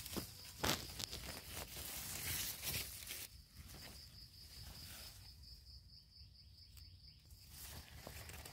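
Dry leaf litter and twigs crackling and rustling as a machete and fingers clear around a mushroom and pull it up, with sharp snaps in the first three seconds. After that it goes quieter and a steady high insect trill comes through.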